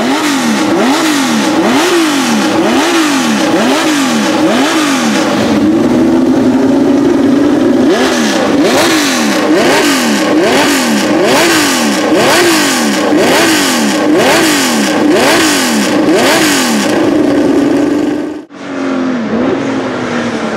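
The 3-litre naturally aspirated 180-degree V12 (flat-12) of a 1972 Tecno PA 123/3 Formula One car, revved stationary in quick repeated blips, about one and a half a second, twice held briefly at higher revs. Near the end a sudden cut gives way to the car running on the track, its engine note falling.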